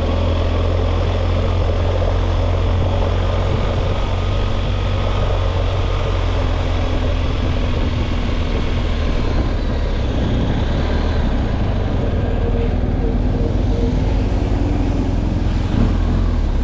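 Motorcycle on the move: steady engine and road noise.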